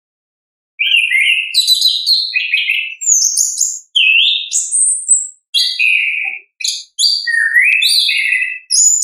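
Chestnut-capped thrush (anis kembang) singing a fast, varied song of high whistled, sliding and trilled notes. It starts about a second in and runs in several phrases with brief breaks. This is the full, continuous song that bird keepers call ngeplong.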